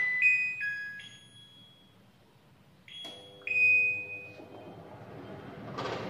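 Touch control panel of a kitchen chimney range hood sounding a short electronic jingle of beeps at changing pitches as it is switched on, then a second short pair of beeps about three seconds in. After that the hood's blower fan starts, a hum and rush of air that grows louder near the end.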